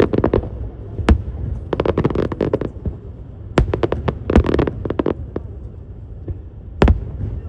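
Aerial fireworks going off in quick clusters of crackling bangs, with single sharper bangs about a second in and near the end, over a low steady rumble.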